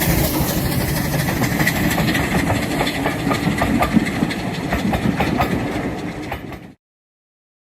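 Steam-hauled train running by, its wheels clicking over the rail joints. The sound eases slightly, then cuts off abruptly near the end.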